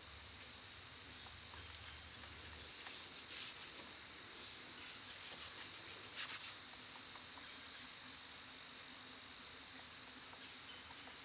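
Insects trilling in a steady, high continuous chorus, pulsing rapidly for the first couple of seconds. About three seconds in, faint scratchy strokes join it for a few seconds: a brush fanning seam sealer over the tent fabric.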